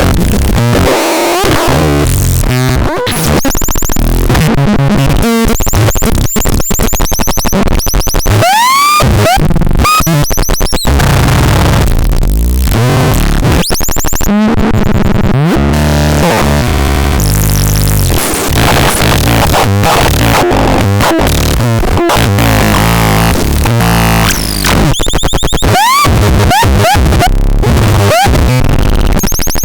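Harsh electronic noise from a synthesizer-type noise box: dense crackling noise with tones swooping up and down, stuttering breaks and a deep rumble underneath, loud and unbroken.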